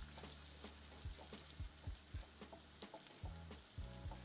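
Sliced onion sizzling faintly in hot olive oil in a nonstick frying pan while a wooden spoon stirs it, with many small clicks and scrapes throughout.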